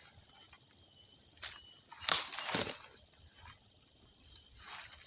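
A steady high insect drone, with a few sharp knocks; the two loudest come close together about two seconds in.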